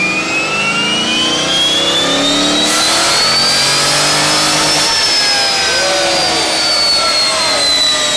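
C5 Corvette's V8 engine on a chassis dyno in a full-throttle pull, revving up steadily for about five seconds, then falling away as the throttle is let off. For the last couple of seconds of the climb a loud hiss of nitrous, sprayed by hand into the intake, rides over the engine.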